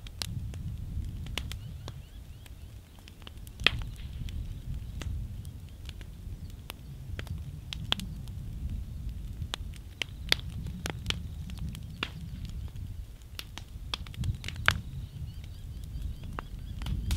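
Fire crackling, with sharp pops at irregular intervals and a few louder snaps, over a low steady rumble.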